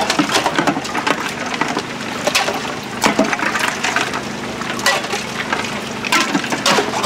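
Steel ladle scooping iced sugarcane drink from a chilled tank and pouring it into a plastic cup: repeated clinks and knocks of metal and ice, with liquid splashing.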